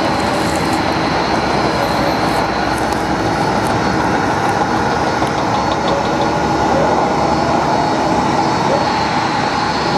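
Boeing 767 jet engines at taxi thrust: a steady, loud noise with a whine held on a few fixed pitches.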